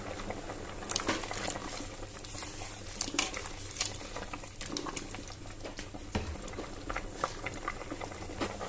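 A large pot of sopas, macaroni soup in chicken broth, at a rolling boil: steady bubbling and popping, with a few light knocks.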